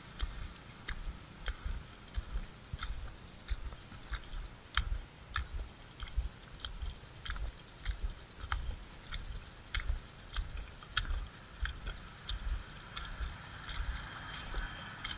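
Footsteps in soft, wet mud of a drained fish pond, each step a low thud with a short sticky click, about three steps every two seconds.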